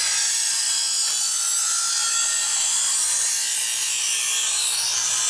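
Chef's Choice electric knife sharpener running, its abrasive discs grinding the steel edge of a chef's knife drawn slowly through the coarse first-stage slot: a steady high grinding hiss over the low hum of the motor. Near the end the grinding sound dips in pitch and rises again.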